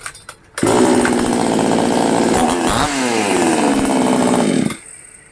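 Powertex chainsaw engine starting about half a second in and running loudly and steadily. Its pitch dips and climbs back around the middle, and it cuts off shortly before the end.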